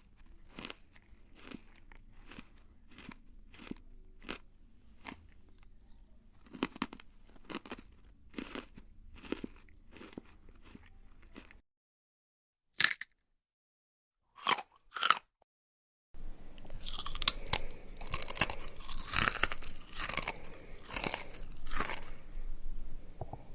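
A mouth chewing crunchy food close to the microphone. First come steady, evenly paced crunching chews, a little under two a second. After a short silence broken by three sharp crunching bites, louder and denser crunching chews follow.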